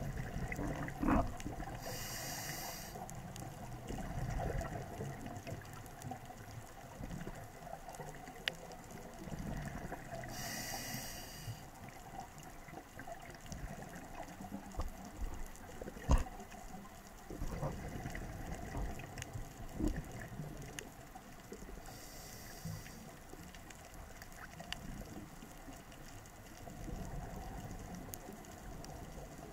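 Underwater sound picked up by a scuba diver's camera. A low, steady water rumble runs throughout. A regulator exhausts a burst of bubbles three times, about ten seconds apart, and scattered sharp knocks come through, the loudest about halfway through.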